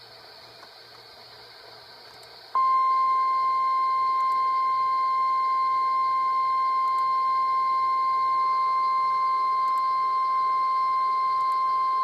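NOAA Weather Radio 1050 Hz warning alarm tone: one loud, steady, unbroken high tone that starts about two and a half seconds in, after a stretch of faint radio hiss. It is the attention signal that opens an Emergency Alert System weather alert.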